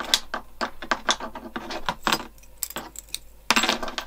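Metal scissors being handled and snipping thread: a quick, irregular series of sharp metallic clicks, with a louder cluster about three and a half seconds in.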